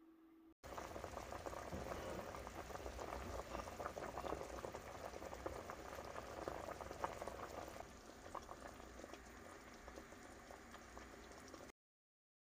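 Beef seaweed soup (miyeokguk) at a rolling boil in a stainless steel pot: a dense bubbling full of small pops. It eases a little about eight seconds in and cuts off suddenly near the end.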